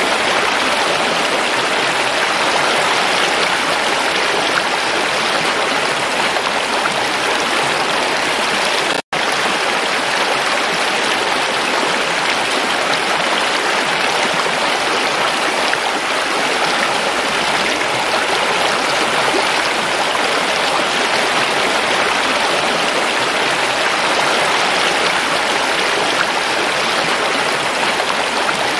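Shallow stream rushing over rocks: a steady, even hiss of flowing water, broken by a split-second gap about nine seconds in.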